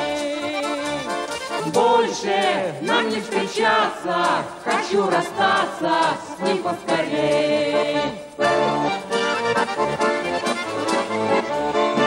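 Russian garmon (button accordion) playing a tune, with its chords and melody sounding together.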